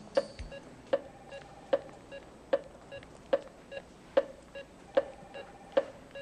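Bedside cardiac monitor beeping steadily, about one beep every 0.8 seconds (roughly 75 a minute), with fainter blips between the beeps.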